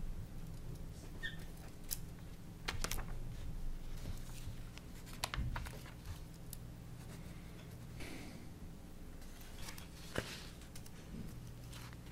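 Papers rustling and pages being handled at a table, with scattered small taps and clicks over a steady low hum.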